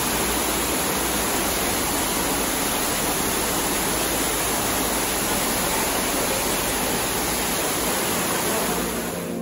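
Spa cascade shower: a sheet of water falling from the wall into a pool, a steady loud rush and splash of water.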